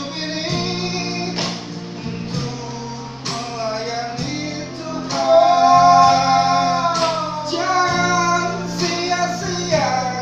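A group of men singing a song together to keyboard accompaniment, with a long held note about halfway through.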